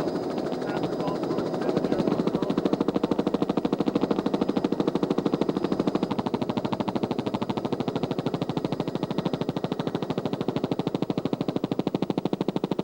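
Helicopter rotor chopping, a rapid, even pulse of about ten beats a second that grows louder about two seconds in.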